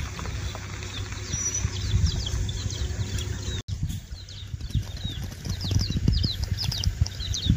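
Small birds chirping in many quick, high, falling notes, over irregular low thumps and rumble. The sound cuts out completely for a moment about halfway.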